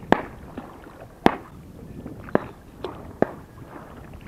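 Paddle knocking against the side of a small boat with each stroke, making sharp knocks about once a second over the low rumble of water and handling noise.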